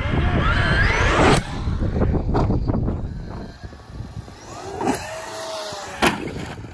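Traxxas Mini Maxx RC monster truck's brushless electric motor whining and rising steeply in pitch as it accelerates, cutting off suddenly about a second and a half in. Quieter motor whine follows, with two sharp knocks near the end as the truck hits the ground and tumbles.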